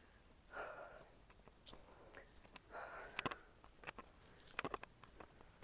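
Faint footsteps scuffing on a sandy, gritty path, two soft scrapes with a scatter of small sharp clicks between them.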